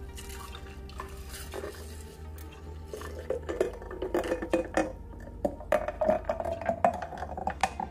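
Juice poured in a steady stream into a glass pitcher over ice cubes: splashing and pouring, with the ice clinking against the glass, and a pitch that rises as the pitcher fills.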